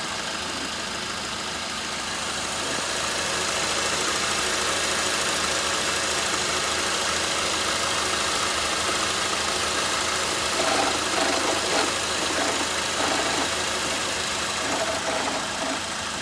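2007 Honda Accord 2.4L four-cylinder engine idling steadily. An intermittent rattle comes and goes in uneven bursts over the second half: the sign of failing alternator bearings.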